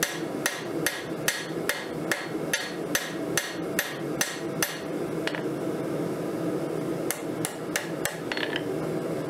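Hand hammer striking a red-hot high-carbon steel railroad-spike knife blank on an anvil: a steady run of sharp blows, about two and a half a second, then a pause of about two seconds, then four more blows near the end, one ringing briefly. A steady low rushing noise lies underneath.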